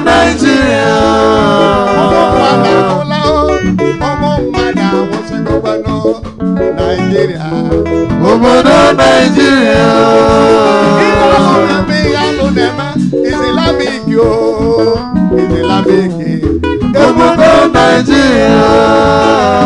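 Live gospel praise music: voices singing into microphones over an electric guitar and a drum kit.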